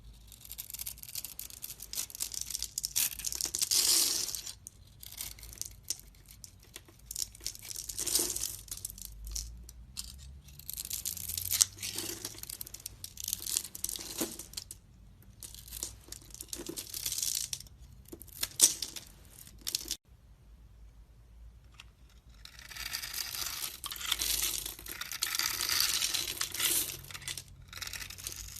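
Bar of soap being carved with a knife: a series of crisp scraping and cutting strokes with short pauses between them. After a brief pause about two-thirds of the way through comes a longer stretch of scraping.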